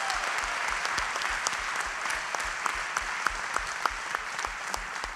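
Congregation applauding, a dense patter with individual sharp claps standing out, easing slightly toward the end.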